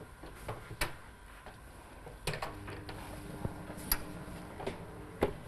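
A few sharp clicks and knocks, about four spread over five seconds, from handling at a kitchen oven with a tray just placed inside.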